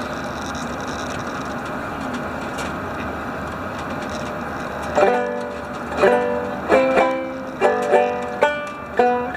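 Steady drone of the ferry underway, then about five seconds in a five-string banjo starts being picked: single plucked notes and chords that ring and decay, roughly one or two a second.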